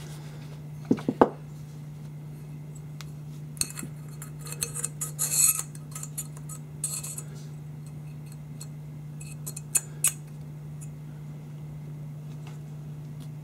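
Metal AR-15 parts handled on a workbench, clinking and scraping: a few sharp knocks about a second in, a cluster of scraping clinks around the middle, and two more clicks near the end, over a steady low hum.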